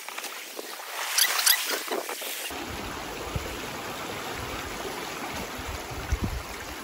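Shallow seawater washing and trickling around shoreline rocks as a steady wash, with a few sharper splashes about a second in.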